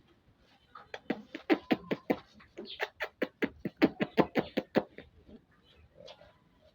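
An animal gives a rapid run of short calls, about five a second, for about four seconds.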